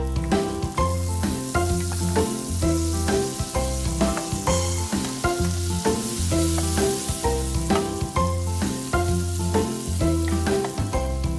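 Butter and minced garlic sizzling in a frying pan as chopped parsley goes in and is stirred with a wooden spatula. Background music with a steady, repeating bass line plays throughout.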